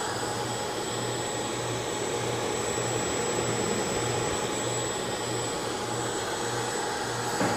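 Cooling fans of an ASTEC AA24520L 3160 W server power supply running steadily: a rush of air with a thin high whine, and a low hum that swells about once a second.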